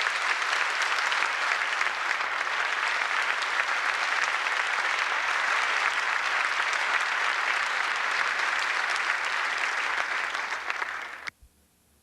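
Audience applauding steadily in a hall, cut off abruptly near the end.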